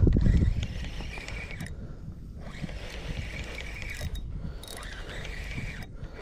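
Fishing reel being cranked, winding in line with a fish on, with a faint steady whirr that stops briefly a few times. A low rumble of wind or water at the very start.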